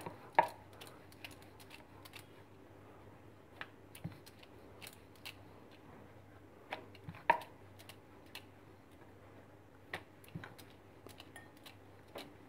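Wooden rolling pin rolling out paratha dough on a round board: scattered light clicks and knocks, with one louder knock about seven seconds in, over a faint steady low hum.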